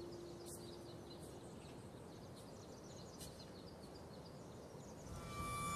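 Faint countryside ambience with small birds chirping now and then. A low held note dies away in the first second or so, and soundtrack music comes in near the end.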